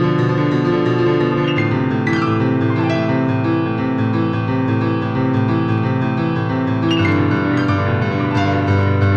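Background piano music: slow held chords that change a couple of times, with a falling run of notes about two seconds in and again near seven seconds.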